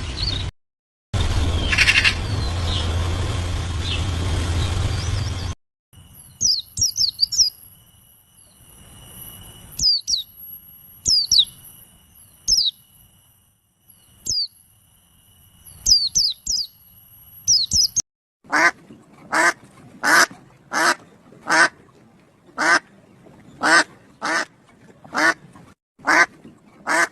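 Birds calling in three short clips cut together. First comes a noisy stretch with one brief call burst, then a run of quick high, falling chirps over a steady thin tone. Last come loud harsh calls repeated a little over once a second.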